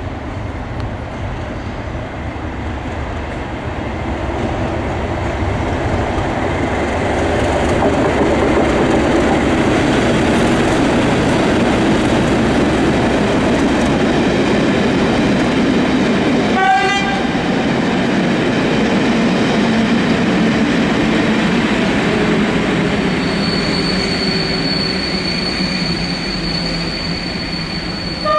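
A train passing: the rumble of the train builds over several seconds, holds steady, then slowly eases off. A brief high tone cuts through about two-thirds of the way in, and a thin high whine sets in near the end.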